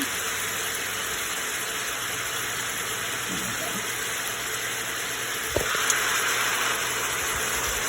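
Food sizzling in olive oil on the stove, a steady hiss. About five and a half seconds in there is a single knock, and the sizzle grows louder after it.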